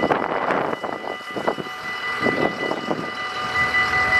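Level-crossing warning bell ringing continuously, a steady high metallic ring over a background of vehicle noise and scattered murmuring.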